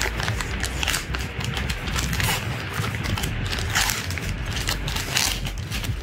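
Plastic packaging bag crinkling and rustling as hands pull it open and slide it off a fabric bag, in a run of irregular crackles and scrapes.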